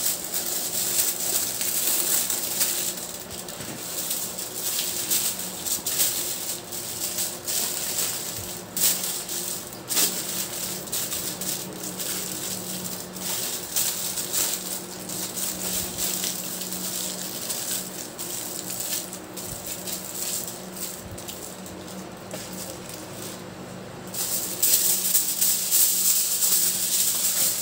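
Aluminium foil crinkling and rustling as it is folded and pressed around a whole stuffed milkfish, with a louder, denser stretch near the end as more foil is pulled off the roll.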